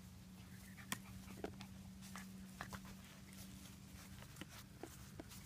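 Faint sounds of Labrador retriever puppies at play, mouthing and tugging a cloth towel: scattered light clicks and rustles, with a low steady hum underneath.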